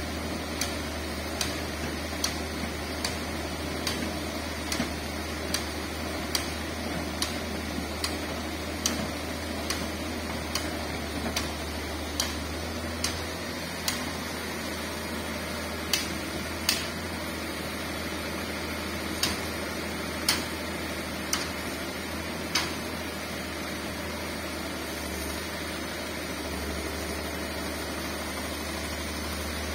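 Diesel engine of a Komatsu hydraulic excavator running steadily with a low hum while it loads sand into a dump truck. Sharp ticks come about once a second and stop a few seconds before the end.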